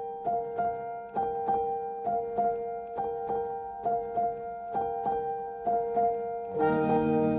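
Background piano music: a gentle repeating figure of notes, about three a second, over a held tone, with fuller, lower chords joining near the end.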